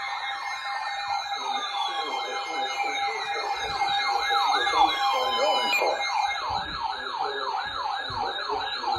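Several electronic sirens sounding at once: a fast yelp sweeping up in pitch about three times a second over slower falling wails, a steady tone and a wavering high tone.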